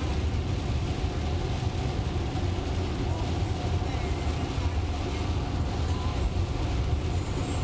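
Steady rush of tyres on a rain-soaked interstate and heavy rain striking the car, heard from inside a Tesla's cabin at highway speed.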